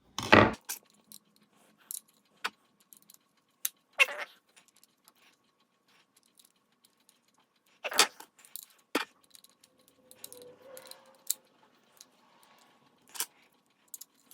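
Scattered small clicks and light metallic taps, with a few louder knocks, from a small screwdriver and pedal parts being handled while knobs are fitted to a guitar effects pedal.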